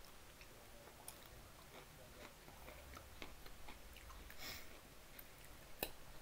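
Faint chewing of a mouthful of food close to the microphone, a meal of chicken nuggets and potato wedges, with scattered small clicks and crunches and one sharper click near the end.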